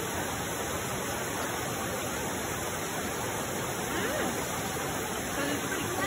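Mountain stream flowing over rocks: a steady, even hiss of running water.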